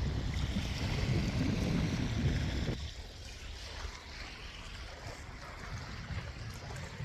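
Wind buffeting the microphone with a heavy, low rumble, which cuts off abruptly about three seconds in, leaving a softer steady rush.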